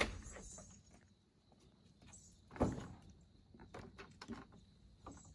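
A glass-paned door shut with a thud right at the start, followed by a second, softer thump about two and a half seconds later and a few faint clicks and knocks.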